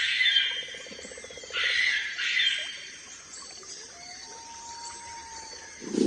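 Birds chirping and calling in a forest, with a short thin whistle later on. A loud tiger roar begins right at the very end.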